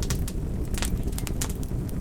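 Wood fire crackling: sharp, irregular snaps and pops, about four a second, over a steady low rumble.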